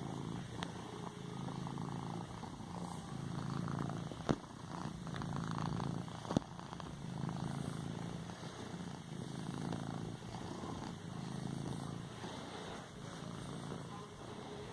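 Domestic cat purring close up while kneading a pillow, a steady low purr that swells and eases with each breath. Two short sharp clicks cut through about four and six seconds in.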